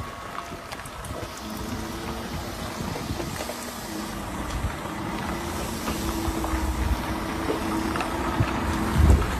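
Semi-truck's diesel engine running steadily as the tractor-trailer maneuvers slowly, the hum growing louder as it comes closer, with wind rumbling on the microphone and a louder low rumble near the end.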